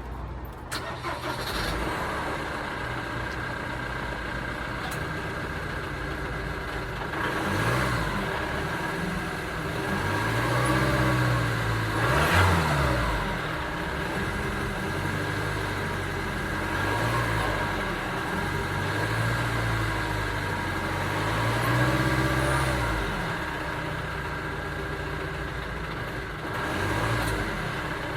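2009 Ford Transit Sport van engine running and being revved several times, each rev rising and falling in pitch, the highest rev about halfway through.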